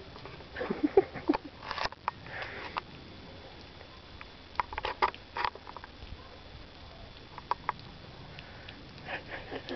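Crunching steps in deep, fresh snow: clusters of short, sharp crunches, loudest in the first few seconds, with shorter groups near the middle and near the end.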